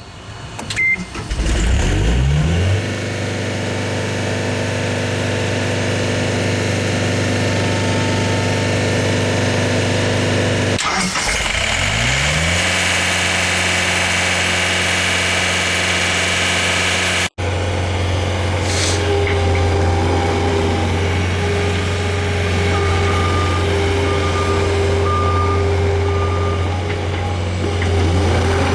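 Diesel engine of a 2007 John Deere CT322 tracked skid steer starting, rising in pitch and settling into a steady run. It revs up again partway through and then keeps running. In the second half a short beep repeats over the engine, like a reverse alarm.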